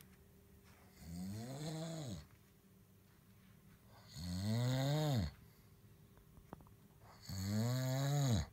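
A man snoring loudly in his sleep: three long snores about three seconds apart. Each has a throaty, pitched tone that rises and then falls, over a breathy hiss.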